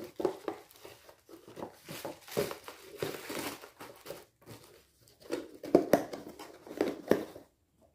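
Plastic bag and cardboard box handled by hand: irregular crinkling and rustling with light knocks and clicks.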